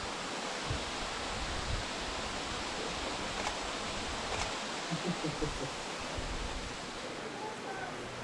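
Steady rushing of water from the Bear Run stream and its falls beneath Fallingwater, an even hiss without pauses.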